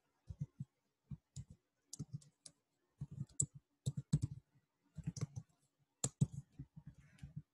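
Typing on a computer keyboard: keystroke clicks in short, irregular runs with brief pauses between them.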